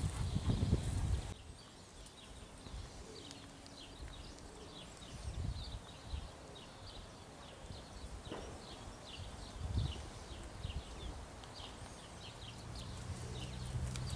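Small birds chirping repeatedly in short high notes, with a few soft thumps. A low rustling noise covers the first second, and a steady low hum comes in near the end.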